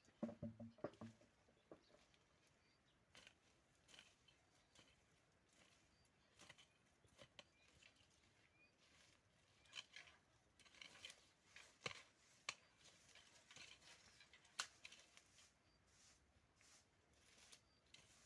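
Near silence with scattered faint clicks and rustles, a brief low sound in the first second.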